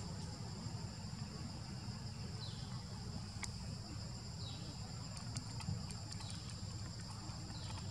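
Steady high-pitched chorus of forest insects, with a short falling chirp every second or two.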